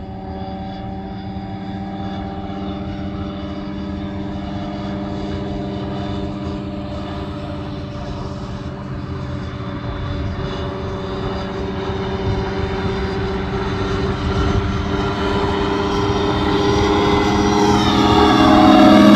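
Phantom ultralight's engine and propeller droning steadily in flight, growing louder as the plane comes closer. Near the end the pitch starts to drop as it passes close by.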